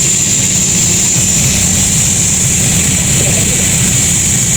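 Sawmill machinery running steadily: a loud, constant low drone with an unbroken high whine over it.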